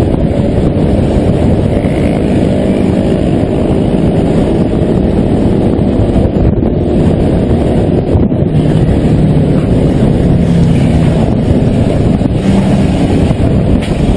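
Motorcycle engines and heavy wind buffeting on a bike-mounted camera's microphone at highway speed: a loud, steady rumble.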